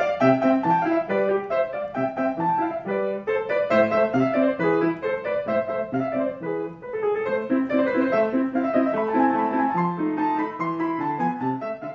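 Solo piano music: a steady run of quick notes with no voice over it.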